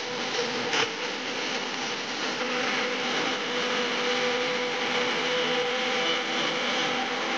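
Dance music for a Ghoomar performance played loud and distorted over loudspeakers, heard as a dense, harsh wash with a few held notes showing through, and a sharp click about a second in.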